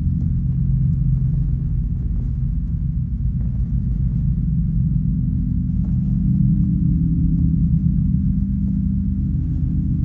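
Dark ambient background music: a steady, rumbling drone of held deep tones.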